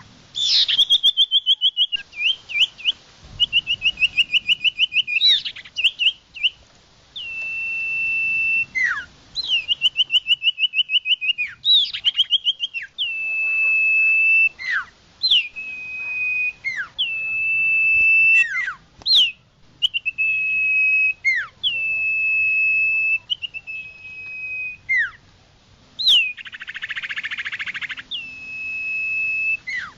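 A songbird singing the same whistled phrase over and over: a high steady whistle, sometimes broken into a fast trill, each ending in a quick downward slide. Near the end a brief hiss lasting about two seconds sounds over the song.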